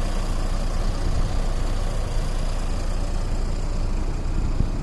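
Self-propelled turf harvester (Trebro Auto Stack 2) running steadily while cutting and rolling sod: an even, low engine rumble.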